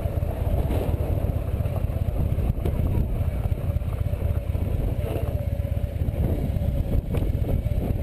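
Touring motorcycle's engine running steadily at low speed, loud and low-pitched.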